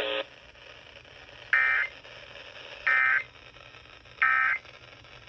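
NOAA Weather Radio's Emergency Alert System end-of-message data tones: three short, high-pitched digital data bursts about 1.3 s apart, the SAME "NNNN" code that closes the flash flood warning. Faint radio hiss lies between them.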